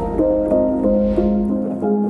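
Background piano music: notes changing a few times a second over a held low note.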